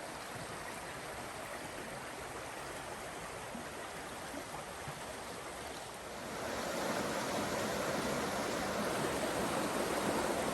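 Steady rushing of flowing water, growing louder about six seconds in.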